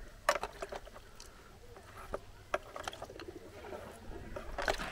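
Metal spoon clinking and scraping against a pot and a metal bowl as fried pumpkin is served out, in a series of scattered sharp clicks and knocks.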